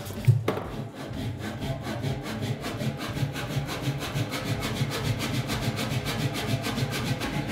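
Béché air power hammer running: a knock just after the start, then the crank and compressor piston cycling in a fast, even, rasping rhythm.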